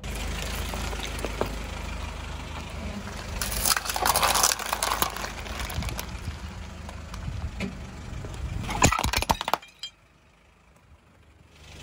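Car tyre crushing objects on pavement, over a low engine hum: crackling and crunching of hard plastic, with a louder burst of crunching about four seconds in. Near the end comes a quick run of sharp cracks as a ceramic plate breaks, then near silence for the last two seconds.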